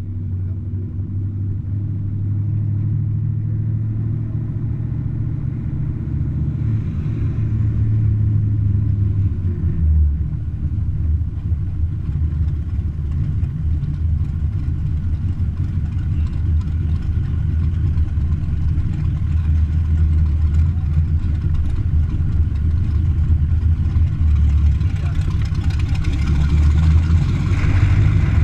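Car engine running with a deep, steady low rumble that grows gradually louder.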